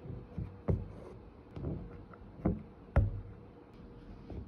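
Hand embroidery stitching: a needle pushed and pulled through thin canvas drum-tight in an embroidery hoop, with single-strand cotton floss drawn after it. About half a dozen sharp taps come at irregular intervals, the loudest about three seconds in.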